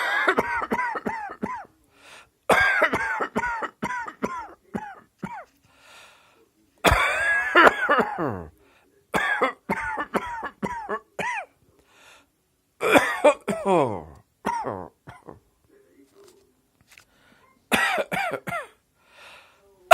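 Repeated fits of coughing: about six bouts, each a quick string of short, high-pitched coughs that fall in pitch, with pauses between.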